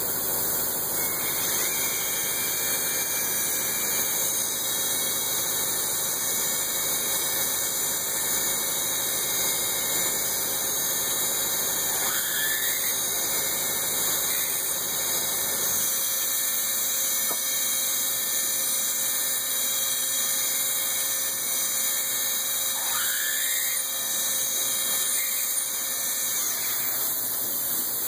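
A metalworking machine tool running and cutting metal for Oldham coupling parts: a steady, high-pitched whine and hiss. The low rumble underneath drops out about halfway through.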